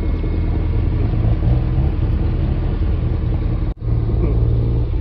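Second-generation Toyota MR2 engine running steadily at idle close by, a loud low exhaust note. The sound breaks off for an instant near the end and comes straight back.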